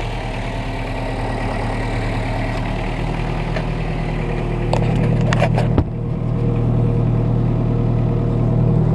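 A vehicle engine running steadily at low speed, getting a little louder about halfway through, with a single sharp knock about six seconds in and a few light clicks.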